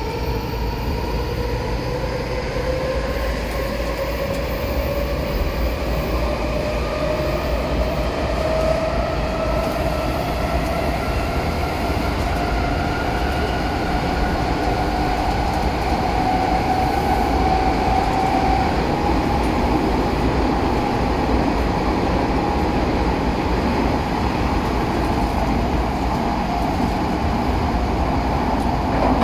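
Odakyu 4000-series electric train heard from inside the car, accelerating: its traction motor and inverter whine climbs steadily in pitch over a constant rumble of wheels on rail. It levels off about two-thirds of the way through as the train reaches running speed.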